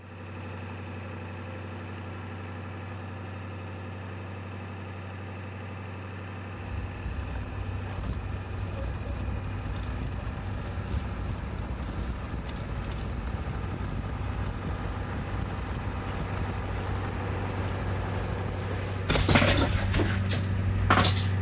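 Ambulance engine idling, heard from inside the vehicle: a steady low hum, with a deeper rumble joining about six seconds in. Near the end come two short, loud bursts of noise.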